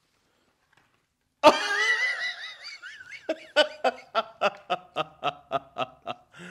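Laughter that bursts out suddenly and high-pitched about a second and a half in, then runs on as a fading string of short rhythmic laughs, about three or four a second.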